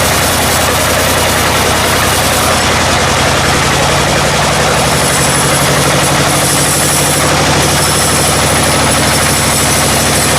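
A heavy engine running steadily at a constant speed, with a hum of even low tones under a steady noisy haze.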